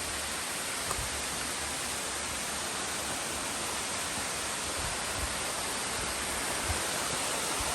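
Two-tiered waterfall pouring down in a steady, even rush of water.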